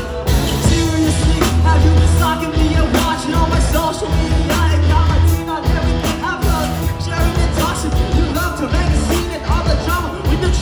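Rock band playing live and loud: amplified electric guitars driven by a drum kit.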